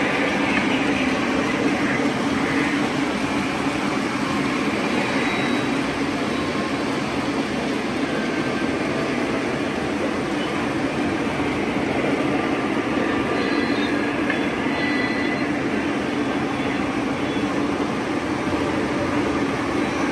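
Model train of powered BNSF ES44AC diesel locomotives and flatcars running past on tabletop track: a steady, unbroken rumble of the wheels and motors.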